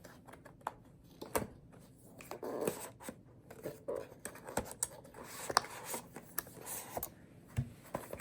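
Packaging being handled while earbuds are unboxed: a scatter of irregular small clicks, scrapes and rustles.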